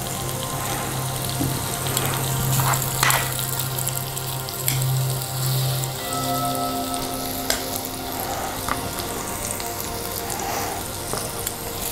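Butter sizzling in a frying pan with raw onion rings frying in it, with a few light taps as more rings are set into the pan.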